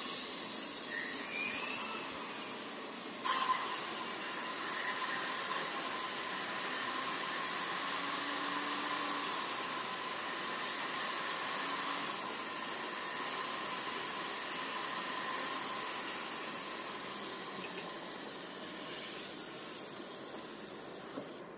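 Jeweller's handheld rotary tool running steadily while polishing a silver flower earring, a constant hiss with a faint steady whine. A louder hiss fills the first couple of seconds, and the sound cuts off suddenly near the end.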